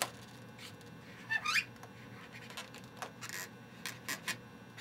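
Marker drawing on an inflated white latex modelling balloon: a series of short scratchy strokes, with a rising squeak of the rubbed latex about a second and a half in.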